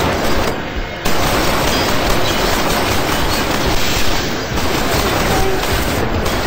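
Sustained automatic gunfire, a dense continuous rattle of shots. It drops briefly about half a second in and comes back hard at about a second.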